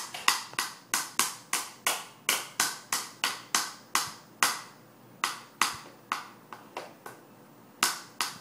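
Hand claps in a steady run of about three a second. They become sparser and fainter past the middle, with a short gap, then come back stronger near the end.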